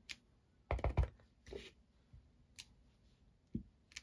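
Clear acrylic stamp block being set down and pressed onto card on a cutting mat: a handful of short knocks and clicks, the loudest pair about a second in.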